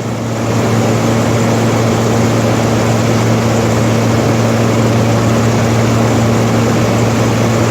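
LG 12,000 BTU air conditioner running in cooling mode, seen from the back at the condenser coils: the compressor hums steadily under the rush of the condenser fan. It grows a little louder about a second in, then holds steady.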